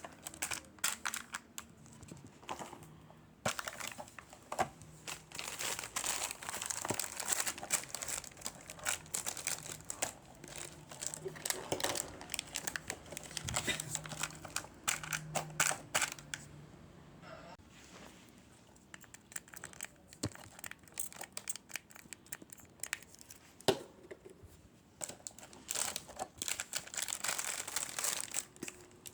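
Plastic packaging crinkling and tearing as it is handled and opened, in irregular crackling bursts with a quieter stretch past the middle.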